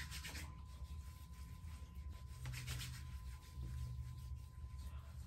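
Hands rubbing together and then rubbing face cream into the skin: soft skin-on-skin rubbing in a few short spells, over a low steady hum.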